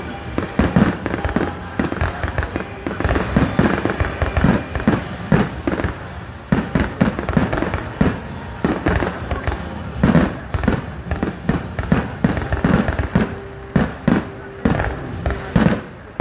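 Aerial fireworks going off in a rapid, continuous barrage: loud bangs of shells bursting several times a second over a steady crackle.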